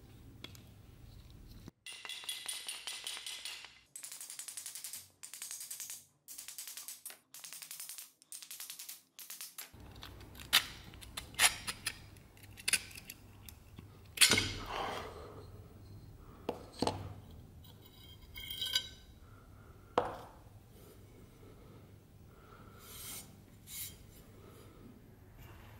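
A few seconds of music, then metal dagger parts (steel blade, crossguard, handle fittings) clinking and knocking as they are handled and set down on a workbench: a string of sharp separate clinks, several of them loud with a brief ring.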